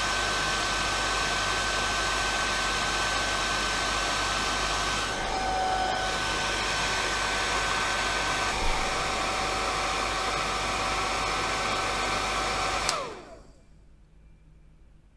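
Heat gun blowing a steady rush of hot air with a constant whine, played over a phone's glass screen to soften the adhesive beneath it. Near the end it is switched off and its motor winds down, the whine falling away.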